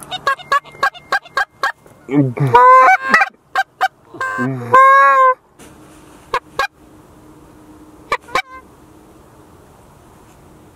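Canada goose honks and clucks blown on goose calls to bring in a single bird. The call opens with a quick run of short clucks, then two loud drawn-out honks that break up and down in pitch, then a few scattered clucks before it goes quiet.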